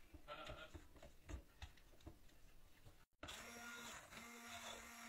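Silicone spatula scraping and tapping through thick masala paste in a nonstick pan, faint and irregular. After a break about three seconds in, a hand-held immersion blender's motor runs with a steady whir, pureeing the onion-tomato gravy.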